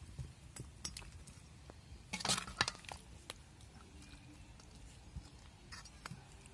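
A metal ladle clinking and scraping against the metal pot and container as chicken gravy is served. Scattered light clicks, with a louder cluster of clinks a little past two seconds in.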